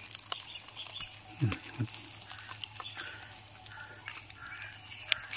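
Faint light rustles and clicks of dry leaf litter being handled, with two short sounds falling in pitch about a second and a half in.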